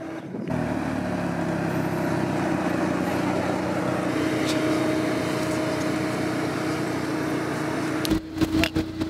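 A car driving at a steady speed: an even engine hum with road noise, starting suddenly about half a second in and breaking off near the end.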